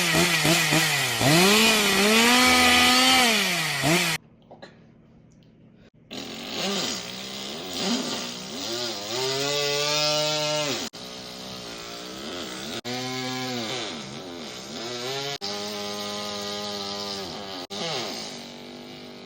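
A person imitating a chainsaw with their voice: a buzzing, pitched drone that rises and falls like a saw revving up and easing off. It stops about four seconds in, then resumes after a short pause in several more revving runs.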